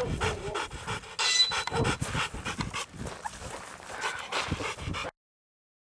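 Adult male Rottweiler panting hard in quick, even breaths, cutting off abruptly about five seconds in.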